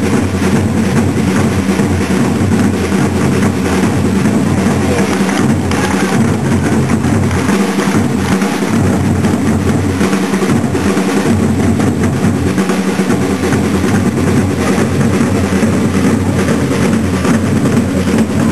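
Side drums of a flag-throwers' drum corps playing a steady, unbroken beat.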